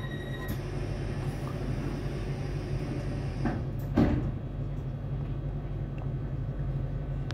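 Class 455 electric train standing at a platform with its steady low hum. Two short knocks come about half a second apart, roughly halfway through.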